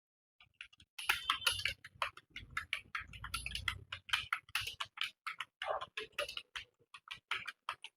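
Typing on a computer keyboard: after about a second of near quiet, a fast, uneven run of key clicks, several a second.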